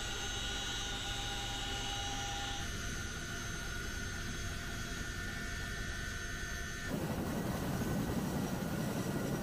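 CH-47 Chinook tandem-rotor helicopter heard from inside the cabin in flight: a steady whine of several fixed tones over a low rumble from the transmissions and turbines. About seven seconds in it changes abruptly to the helicopter running on the ground with rotors turning, a louder rushing noise.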